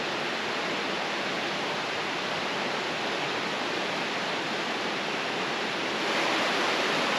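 Creek water rushing steadily, a little louder from about six seconds in.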